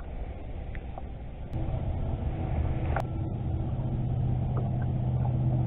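A boat motor's steady low hum starts about one and a half seconds in and holds, with a few light knocks over it.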